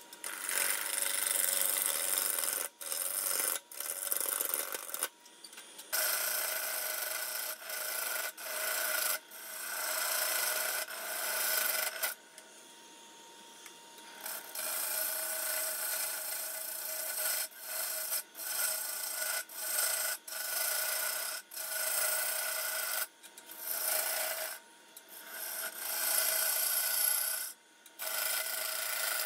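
A turning gouge cutting a spinning red cedar blank on a wood lathe, which is being brought into round: a steady, rough scraping hiss in repeated passes. The hiss breaks off briefly every second or two as the tool comes off the wood, with a longer pause of about two seconds near the middle.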